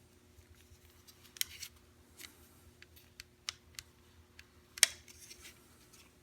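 Small plastic door-handle parts being turned in the hands, giving scattered light clicks and taps, with one sharper click a little over two-thirds of the way through.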